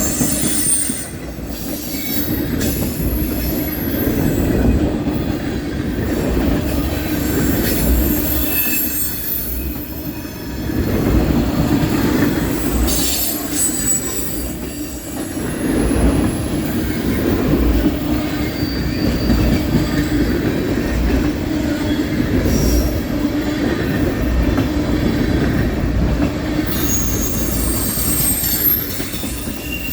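Freight cars of a passing mixed freight train rolling by at speed: a steady rumble of wheels on rail with irregular clatter and several short, high-pitched wheel squeals.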